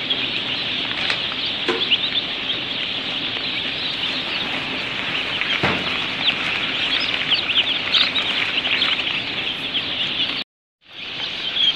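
A crowd of newly hatched broiler chicks peeping together: a dense, continuous chorus of many short, high chirps. The sound cuts out for about half a second near the end.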